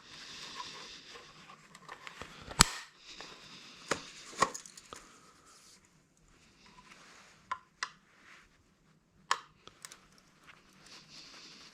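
Hand cutters snipping through scrap wiring, with rustling of the wire and a handful of sharp snaps; the loudest snap comes about two and a half seconds in.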